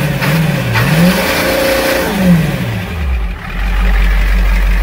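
Ford Econoline van's engine revved once, its pitch rising and then falling, before settling to a low, steady idle about three and a half seconds in, heard from inside the cab.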